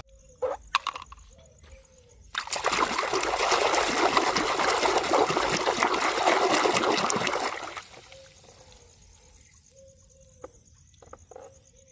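Water running or spraying steadily for about five seconds, starting with a few clicks and knocks and cutting off near the end with a couple of faint ticks.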